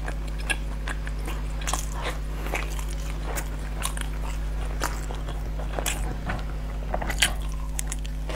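Close-miked eating of glutinous-rice dumplings (zongzi): biting and chewing with a rapid run of small mouth clicks, over a steady low electrical hum.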